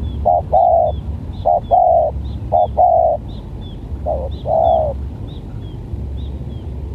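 Spotted dove (tekukur) cooing in repeated short-then-long phrases, four in all, the last one longer, falling silent about five seconds in. A small bird's high chirp repeats about twice a second over it, with a low rumble underneath.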